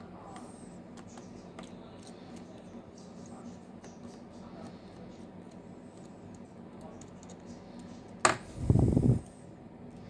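Faint ticks and scraping of a small Phillips screwdriver backing out the tiny screws of a smartphone's mid-frame, over a steady low hum. About eight seconds in comes a sharp click, then a heavy thump as the screwdriver is set down on the workbench.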